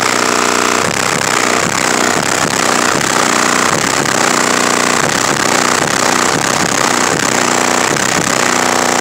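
Bass-heavy music played very loud through four Resilient Sounds Gold 15-inch subwoofers on a Taramps Bass 8k amplifier in a 1996 Chevy Blazer, heard from outside at the rear of the truck. The sound is dense and distorted, with a steady pounding beat.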